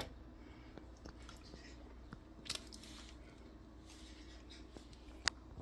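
Quiet kitchen room tone with a steady low hum, broken by two brief clicks, one about midway and a sharper one near the end.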